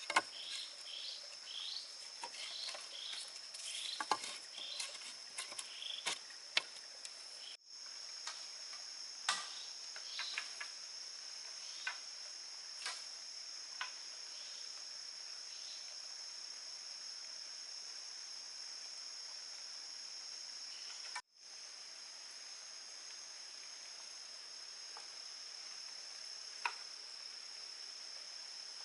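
Steady high-pitched drone of forest insects. In the first several seconds it is joined by repeated short bird chirps and scattered sharp knocks, with a few more knocks later on.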